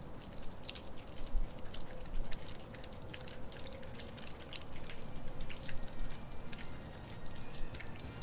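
Rainwater dripping off a roof edge and gutter: irregular drips and taps, several a second, over a soft steady hiss of rain.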